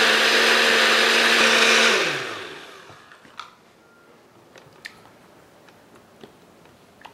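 Countertop blender motor running steadily with a whine while it mixes a thick cream-cheese filling, then switched off about two seconds in, its pitch falling as it spins down. After that there are a few faint taps of a spatula in the glass jar.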